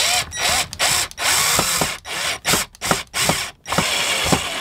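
Cordless drill running in several short start-stop bursts, driving screws into a wooden drawer front to fit a drawer catch.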